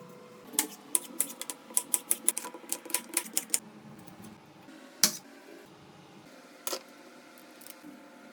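Knife chopping on a cutting board: a quick run of sharp knocks, about four a second for some three seconds, then two single louder knocks.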